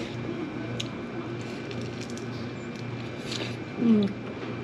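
Small eating sounds, with soft chopstick clicks and chewing, as kimbap dipped in ramen is eaten. Near the end there is a short falling 'mmm' of enjoyment from the eater, the loudest sound.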